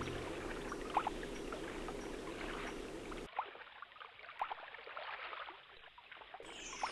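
Small stream trickling, with many small drips and plops scattered through it. About three seconds in the sound turns abruptly duller and quieter.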